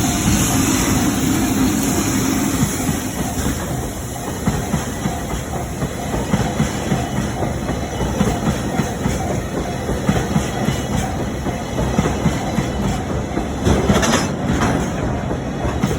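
Freight train of empty tank wagons rolling past close by, wheels clacking quickly and steadily over the rail joints under a heavy rumble. A level-crossing bell rings faintly underneath.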